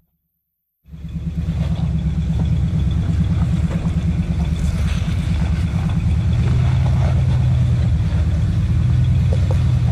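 Engine of a lifted 1990 Chevy half-ton Z71 pickup on 40-inch tires, running with a steady low drone as the truck crawls over rock. It starts after about a second of silence and comes up a little in pitch and strength a few seconds before the end.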